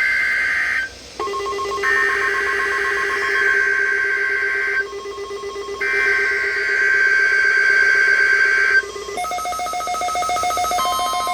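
Emergency Alert System SAME header: three harsh, buzzing digital data bursts, each followed by a short gap, over a steady lower tone. About nine seconds in, they give way to a held multi-tone electronic alert tone.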